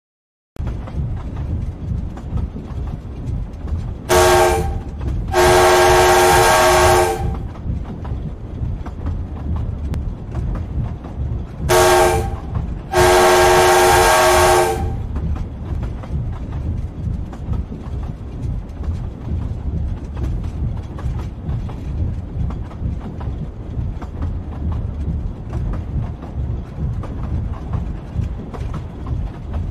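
Steam locomotive running with a steady low rumble, its whistle blowing a short blast then a long one about four seconds in, and the same short-then-long pair again about twelve seconds in.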